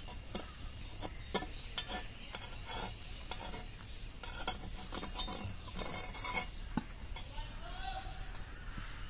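A metal fork scraping and clicking against a cast-iron pitha mould pan as steamed rice cakes are prised out of its cups, in irregular sharp clinks with the loudest about two seconds in.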